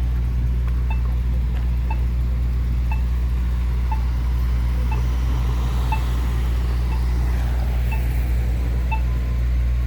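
Accessible pedestrian signal push button's locator tone ticking about once a second, marking the button while the crossing shows don't walk. Under it is a steady low rumble of vehicle traffic.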